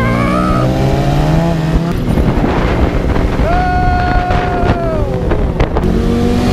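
Motorcycle engine heard from the saddle with wind rush. Its pitch climbs steadily as it accelerates for the first two seconds. A higher engine note then holds for a second or so and falls away near the end as the throttle closes.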